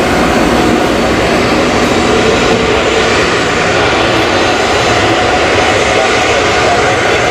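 Boeing 737-800's CFM56-7B turbofan engines running steadily at taxi power as the airliner taxis onto the runway: a loud, even jet engine noise with a faint steady whine.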